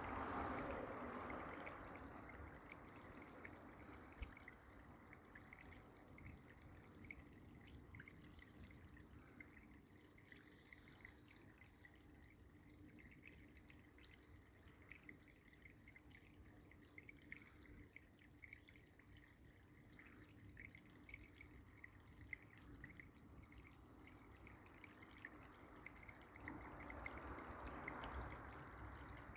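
Near silence: faint room tone with a low steady hum, swelling softly near the start and again near the end.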